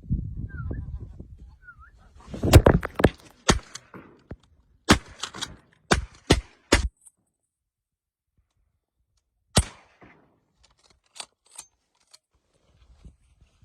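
Shotguns firing on a goose hunt: a rapid string of about a dozen shots between roughly two and seven seconds in, one more loud shot near ten seconds, then a few fainter pops.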